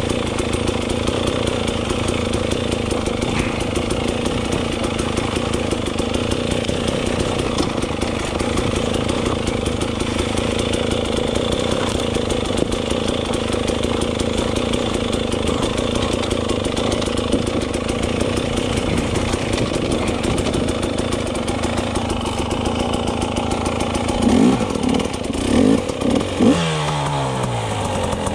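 Dirt bike engine running at a low, steady throttle while riding single track. Near the end come a few quick louder throttle blips, with the engine pitch swinging up and down.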